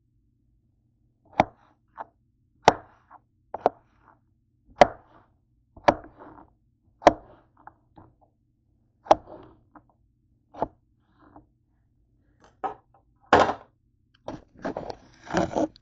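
Chef's knife slicing zucchini on a plastic cutting board: about a dozen sharp cuts, roughly one a second, followed near the end by longer noisy handling sounds.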